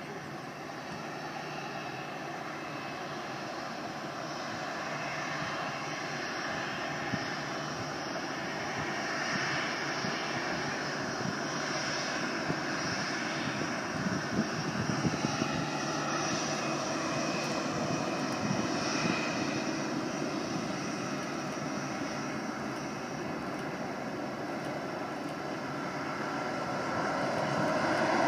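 Boeing 787-9 Dreamliner's jet engines, a steady rush with faint whining tones that slowly grows louder and is loudest near the end.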